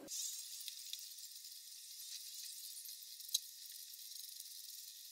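A knife shredding cabbage on a wooden chopping board, heard only as a faint, crisp high hiss with a few soft ticks; the low end of the sound is cut away.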